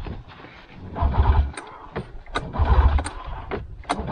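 Snowmobile engine being started: its low rumble comes in short bursts about every second and a half, with sharp clicks in between.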